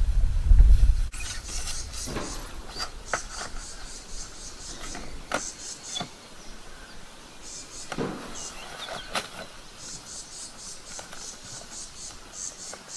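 Wooden board handled onto a car's roof rack: a low rumble in the first second, then scattered knocks and scrapes as it is set and slid into place. Insects chirp throughout in runs of short, rapid, high-pitched pulses.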